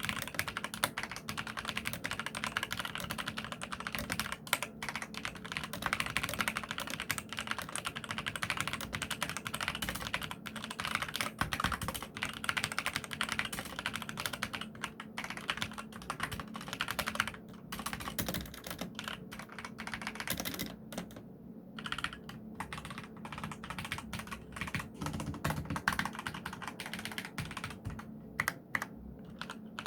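Fast continuous typing on a mechanical keyboard with Kailh red linear switches, a dense stream of key clicks and clacks, with a few short pauses in the last third.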